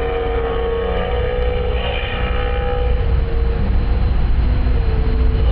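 Tow boat's engine droning steadily at speed, with a loud low rumble and a wash of water noise.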